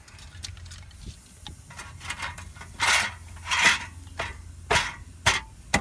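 Metal parts scraping and clinking as a wheel hub assembly is worked into the axle's steering knuckle: a few short scrapes, louder in the second half, with sharp clicks near the end.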